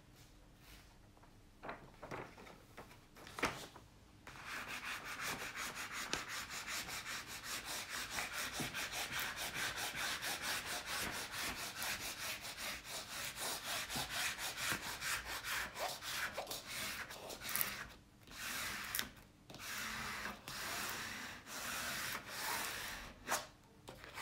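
A flat white tool rubbed back and forth over the protective paper film of a diamond-painting canvas, pressing the film back onto the adhesive: a steady scraping rub of about four strokes a second. It starts about four seconds in and pauses briefly before the last few seconds.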